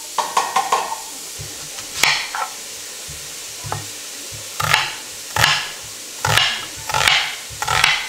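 Chef's knife chopping onion on a plastic cutting board: about ten irregular knocks of the blade through the onion onto the board. Under them a steady sizzle of onions frying in a Dutch oven.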